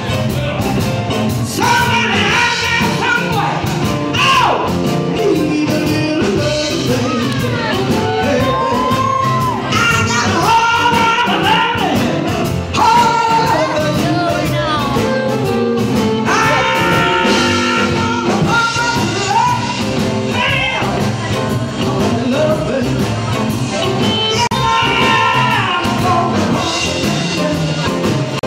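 Live band music recorded in the room: a woman sings lead into a microphone over guitar and drums, with a steady beat.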